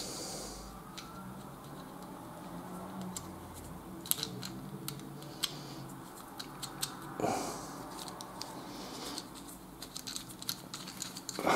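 Faint, irregular small clicks and taps of a washer and nut being slipped on and threaded by hand onto a steel threaded rod, with some handling rustle.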